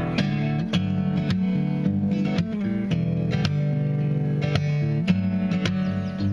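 Acoustic guitar playing an instrumental passage, chords struck in a steady rhythm about twice a second.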